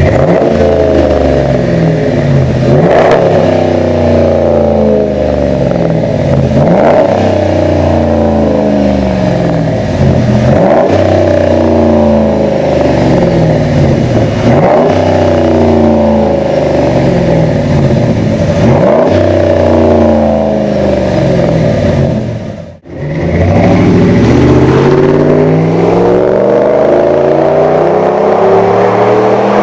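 2013 Dodge Ram 1500's 5.7-litre Hemi V8 through a Flowmaster 40 Series exhaust, revved over and over, about once every four seconds, the pitch climbing and falling back each time. After a brief break near the end the engine is heard again, its pitch rising and falling.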